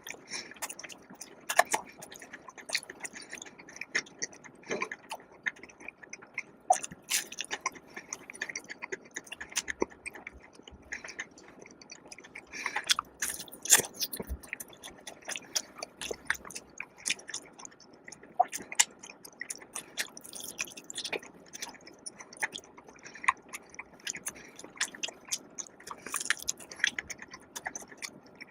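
Close-miked chewing and biting of food, with irregular short crunches and wet mouth sounds throughout.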